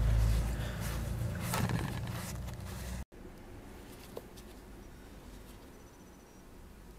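Rubbing and handling noise of gloved hands and a rag wiping grease off milling machine parts, with a couple of light knocks. It cuts off abruptly about three seconds in, leaving only faint small clicks of parts being handled.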